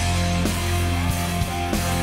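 Rock music with electric guitar, steady bass and drums.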